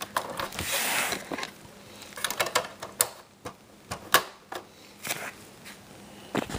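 Handling noise: a rustle about a second in, then scattered sharp clicks and knocks as objects are handled by hand, the loudest knock a little past the middle.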